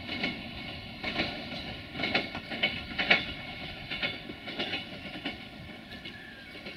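Siemens Desiro VT642 diesel multiple unit running over pointwork, its wheels giving an irregular clatter of knocks at the switches and rail joints, fading as the train pulls away.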